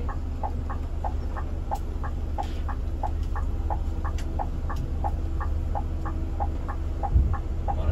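Indicator flasher ticking steadily, about three clicks a second, over the low rumble of a Scania K360 coach engine running. A low thump about seven seconds in.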